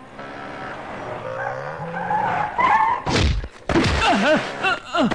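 Dramatic film sound effects: long sliding tones, a sudden loud crash about three seconds in, then a run of short, falling wails.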